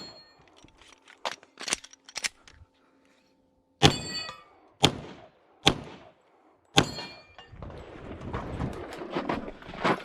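Pistol shots on a steel-target course, spaced irregularly, several followed by the ring of struck steel plates. A few quieter cracks come in the first seconds, then louder shots about a second apart, then a rustling noise near the end.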